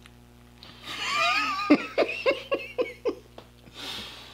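A high-pitched, wavering squeal of delight at the taste, followed by a burst of laughter of about six quick rhythmic laughs and a breathy exhale near the end.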